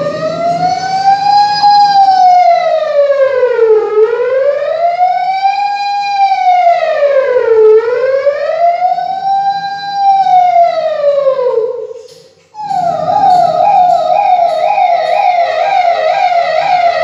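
A man imitating an ambulance siren with his mouth into a microphone: a slow wail rising and falling about every four seconds, then after a short break about three-quarters of the way through, a quick repeating yelp.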